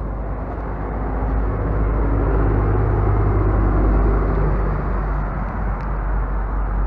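A road vehicle passing, its low engine rumble swelling to a peak about halfway through and then easing off.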